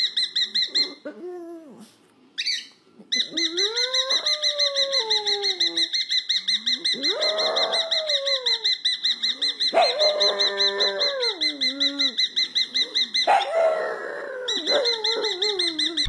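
A cockatiel chirping in a fast, even run of high notes, about six a second, with a short pause about two seconds in. A pug howls along under it in several long moans that slide up and then down in pitch.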